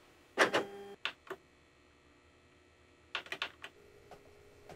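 Office photocopier in use: a thump and a short steady beep about half a second in, two clicks, then a quick run of clicks about three seconds in, followed by a low steady hum.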